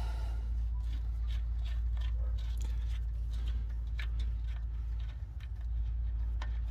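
Drain plug on a Chevrolet 5.3L LS engine's oil pan being unscrewed by hand, giving scattered light metallic clicks and scrapes from the threads, over a steady low hum.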